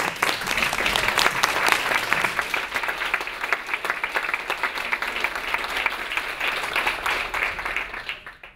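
Audience applauding, steady clapping that fades out near the end.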